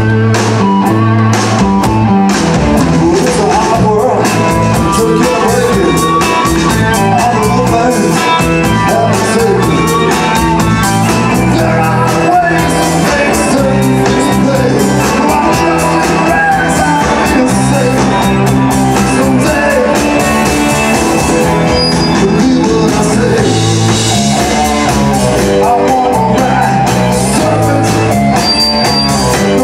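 Live rock band playing: electric guitars, electric bass and drums, with a man singing lead.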